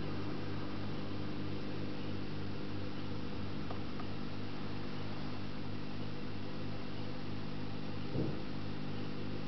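Steady hum of aquarium equipment running, low and even with a regular pulsing, and a brief soft knock about eight seconds in.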